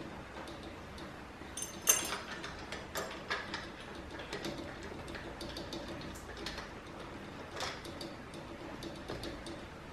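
Small metal clicks and clinks of a clamp and its bolts being fitted by hand around the joint between a Seccua UrSpring filter module and its valve head, with one sharp click about two seconds in and lighter ticks after it.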